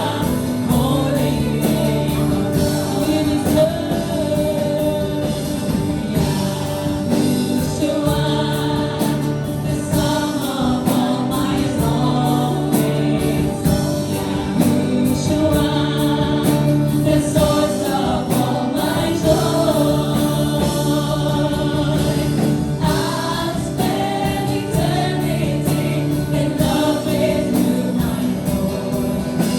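A worship team singing a Christian gospel song together, with musical accompaniment, in long held notes over a steady low bass.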